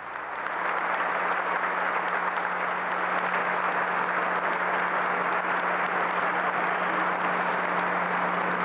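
Sustained applause from a large seated crowd, swelling during the first second and then holding steady, with a faint steady hum beneath it.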